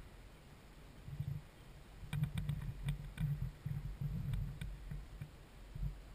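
Wind buffeting the microphone in gusts: irregular low rumbles, strongest in the middle, with a few faint sharp clicks.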